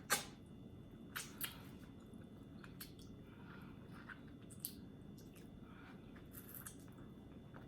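Close-up eating sounds: soft wet chewing and lip smacks from someone eating oxtail, with a sharp click right at the start and a few smaller clicks scattered through.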